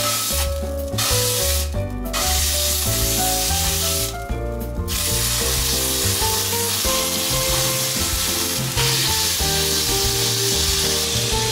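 Duck breasts sizzling skin-side down in a black steel frying pan, in short spells at first and then steadily from about halfway through. The pan has been heated too hot, where a cold-pan start is intended, so the skin sizzles at once. Background music plays over it.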